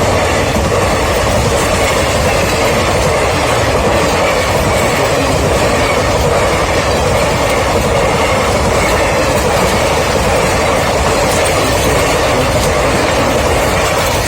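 Train running along the track: a steady, loud noise of wheels on the rails.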